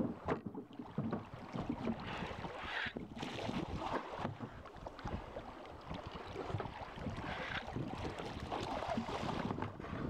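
Wind buffeting the microphone over water sounds around a wooden flat-bottomed river boat (toue), with scattered knocks of rubber boots on the deck planks as the boatman walks along it.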